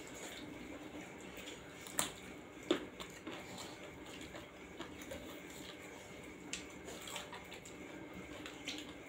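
Close-up eating sounds: fingers squishing rice and curry on steel plates, with chewing and lip smacks. Scattered sharp clicks, the loudest about two seconds in and again just after.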